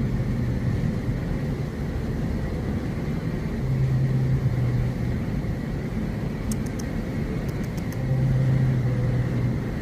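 Steady low rumble with a low hum that swells three times, each for about a second and a half, and a few faint high ticks about two-thirds of the way through.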